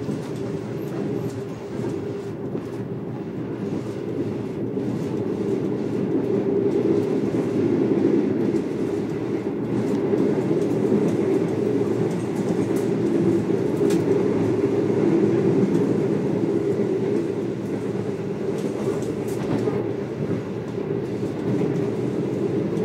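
Passenger train running at speed, heard from inside the carriage: a steady rumble of wheels on the track.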